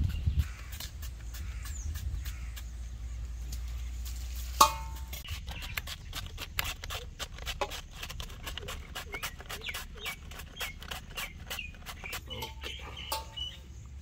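Red cabbage being sliced by hand: quick, crisp cuts at about three or four a second. About four and a half seconds in there is a single sharp knock with a brief ring.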